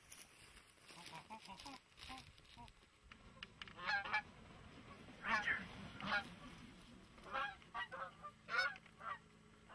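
Geese honking: a run of short honks, faint at first and louder from about four seconds in.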